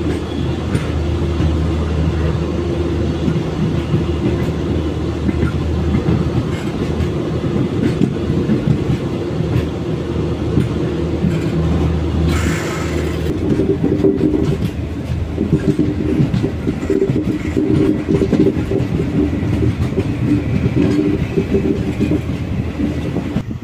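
Garib Rath express train on the move: a steady low rumble with irregular clattering of the wheels on the rails, and a brief hiss about halfway through.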